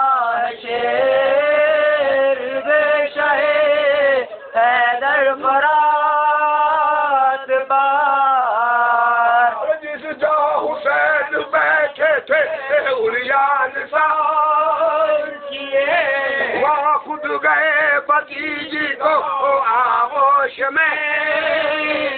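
A man reciting an Urdu marsiya in a slow, unaccompanied sung chant, holding long notes that waver in pitch, with short breaks between phrases.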